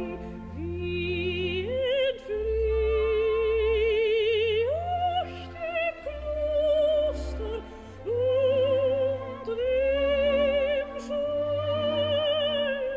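Operatic solo voice singing long, sustained notes with a wide vibrato, rising in several leaps to higher held notes, over a low sustained accompaniment.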